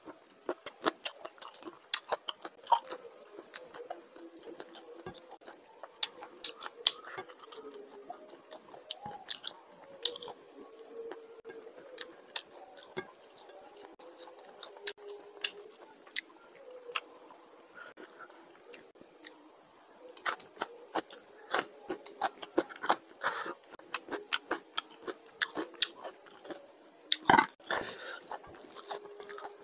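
Close-miked eating: a man chewing and biting mouthfuls of rice, fish fry and prawn curry eaten by hand, with frequent irregular wet clicks and crunches. Rice and gravy are squished together by hand on the plate, and the loudest sharp sounds come near the end.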